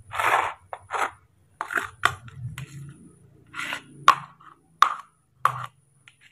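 Metal spoon scraping and pressing thick rice porridge in a plastic bowl, in a string of short scrapes, with three sharp clicks in the second half.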